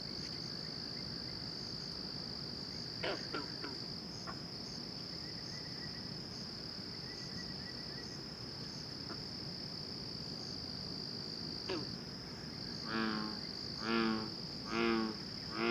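Night chorus of crickets and frogs: a steady high-pitched cricket trill throughout, a couple of falling calls, and near the end a run of four loud pulsed calls about a second apart, which commenters take for frogs.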